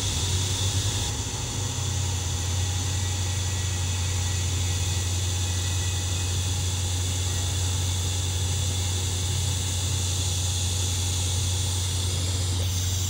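TIG welding arc on a thin-wall titanium tube, with filler rod fed in tiny dabs: a steady low hum with an even hiss above it.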